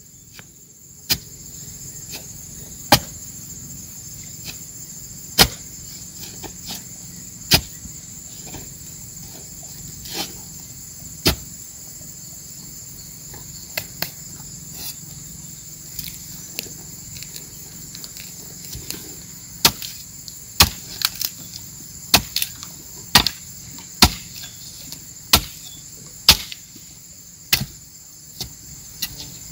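Steady high insect chorus, with sharp knocks or blows every second or two, coming more often in the second half.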